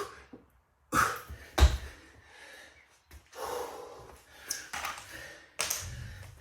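A man breathing hard and gasping after an all-out set of burpees, with loud heavy exhales at irregular intervals. A single sharp thump about one and a half seconds in.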